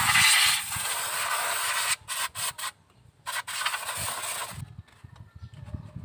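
Aerosol brake cleaner sprayed onto a car's rear drum brake shoes and backing plate: a long steady hiss, then several short spurts about two seconds in, and a last spray that stops about four and a half seconds in.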